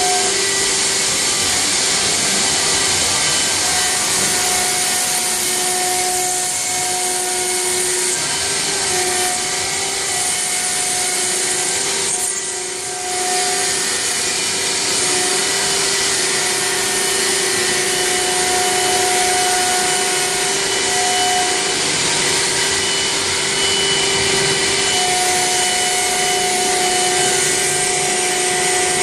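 Two-head CNC stone router engraving marble: the spindle motors whine steadily over the hiss and scraping of the bits cutting into the stone, with a few held tones that come and go. The level dips briefly a little before halfway.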